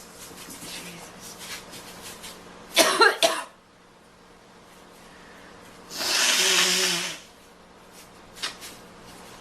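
A young woman coughing: a quick burst of three harsh coughs about three seconds in, then a longer, noisy rasping cough lasting about a second, and a small cough near the end.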